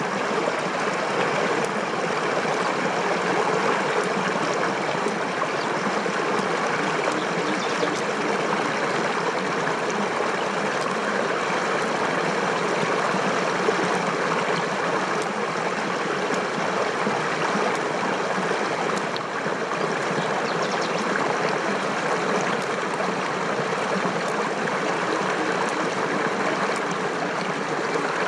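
Steady rush of flowing water, even throughout, with a few faint clicks.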